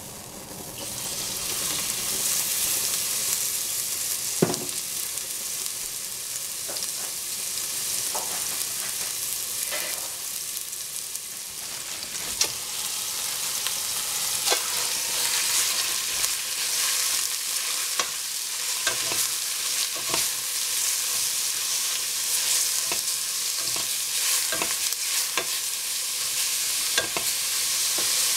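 Ginger slivers and then minced pork frying in a stainless steel pot: a steady sizzle, with a wooden spatula clicking and scraping against the pot as the food is stirred. The minced pork goes in partway through and is stirred in with the ginger.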